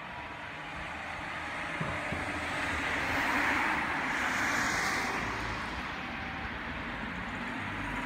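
Cars driving past on a town street: tyre and engine noise swells as a car passes close about four seconds in, then eases off.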